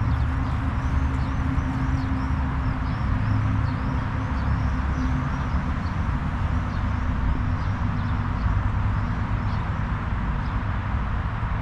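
Small birds chirping over and over, short high calls coming several times a second, over a steady low rumble.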